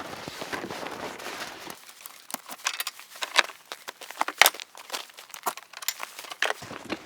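Packaging crinkling and rustling, with scattered sharp clicks and knocks, as supplies are handled and unloaded.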